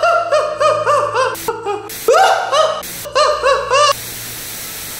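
A man laughing loudly in a rapid string of 'ha-ha' bursts, a mock villain's laugh. About four seconds in, the laugh gives way to the steady hiss of TV static.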